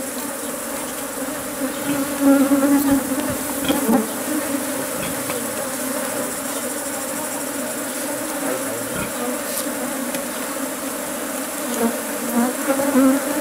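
Many honeybees buzzing around an opened hive in a steady droning hum, swelling louder a couple of seconds in and again near the end as bees fly close.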